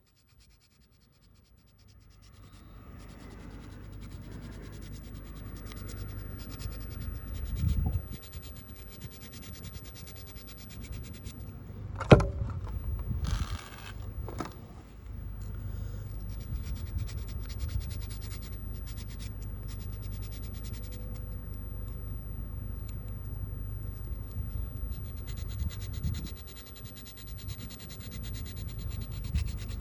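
Hand-sanding an aftermarket fuel filter with sandpaper, a steady scratchy rubbing, to shave it down until it fits through the fuel pump. A sharp knock about twelve seconds in.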